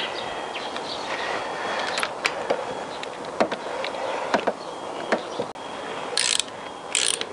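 Scattered metallic clicks and ticks of a spark-plug socket and extension being worked onto the plug and turned in by hand on a motorcycle's finned cylinder head, with two short bursts of ratchet clicking near the end.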